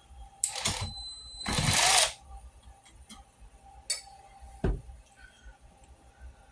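Metal parts and tools being handled during assembly: a few sharp clicks, a louder half-second metallic clatter about a second and a half in, then a click and a dull thump.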